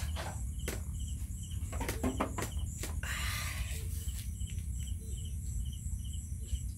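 Insects chirping in an even rhythm, about three chirps a second, over a steady low hum. A few sharp knocks sound in the first half, and a brief hiss comes about three seconds in.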